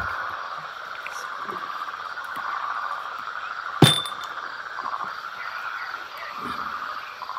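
A steady chorus of frogs calling, with a single sharp clink of tableware about four seconds in.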